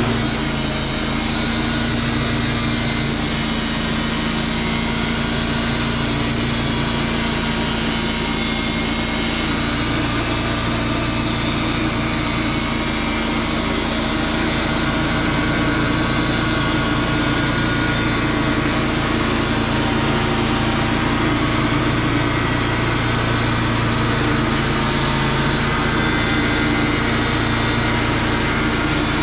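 Portable sawmill's engine running steadily at constant speed, with no break or change in level.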